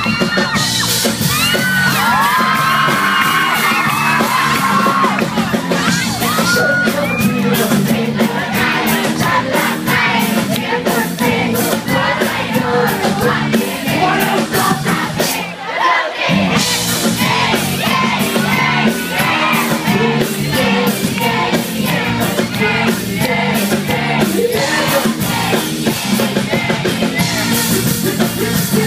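A live band playing a song through a stage PA: a male vocalist singing into a microphone over drums, bass and electric guitars. The band drops out briefly about halfway through, then comes back in.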